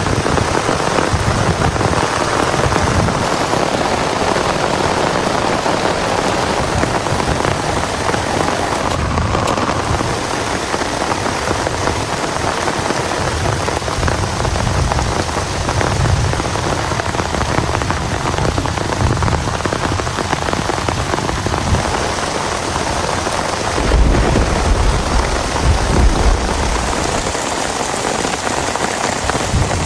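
Heavy rain falling steadily. A low rumble swells for a few seconds near the end.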